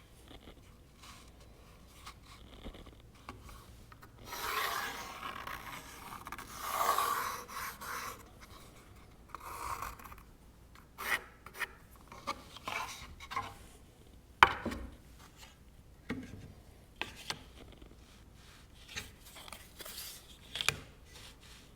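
A pattern and hands rubbing and sliding over cherry boards during layout, in stretches of scraping, with scattered light taps and one sharp knock about two-thirds of the way through.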